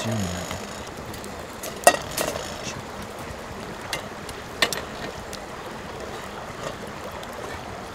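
Open wood campfire burning with a steady hiss and a few sharp crackling pops, the loudest about two seconds in.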